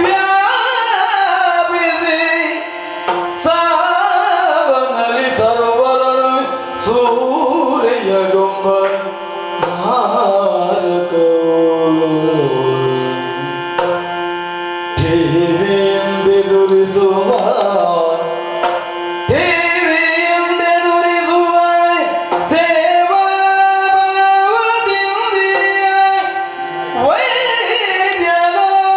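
Yakshagana music: a sung melody glides over a steady drone, with sharp drum strokes every few seconds.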